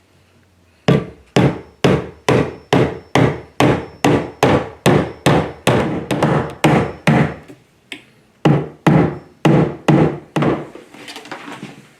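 A hammer striking repeatedly during assembly of a plastic ride-on toy, about three blows a second. It stops briefly about eight seconds in, then gives a few more blows.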